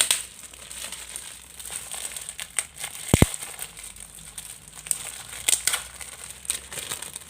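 Parcel packaging and wrapped cards rustling and crinkling as they are handled and unwrapped, with scattered sharp crackles and one dull thump about three seconds in.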